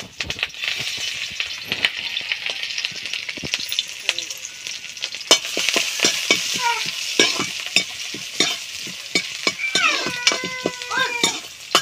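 Chilli and garlic sizzling in hot oil in a metal kadhai, with a steel ladle stirring and scraping against the pan in frequent sharp clicks.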